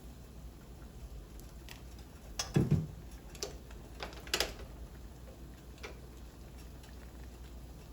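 A few scattered light clicks and knocks of kitchen utensils against cookware, the loudest about two and a half seconds in, over a faint low hum.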